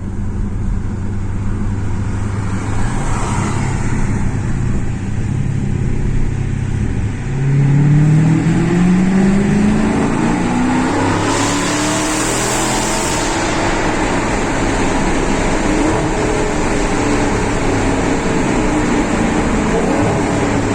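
Dodge Challenger R/T Scat Pack's 6.4-litre HEMI V8 running at a low, steady pitch. About seven seconds in it revs up louder as it accelerates, the pitch climbing for a few seconds before holding at a higher, steady pitch.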